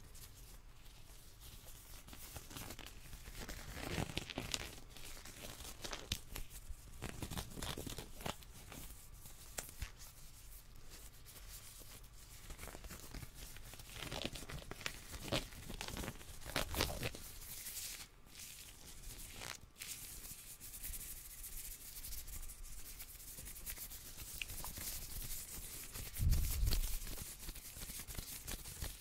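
Clear disposable plastic gloves being pulled on, stretched and rubbed close to the microphone: irregular crinkling and rustling with sharp crackles, and a low thump near the end.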